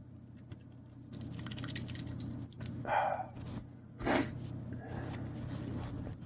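A man breathing noisily on the verge of a sneeze that doesn't come. There is a short voiced gasp about three seconds in and a sharper intake of breath about a second later, over a steady low hum.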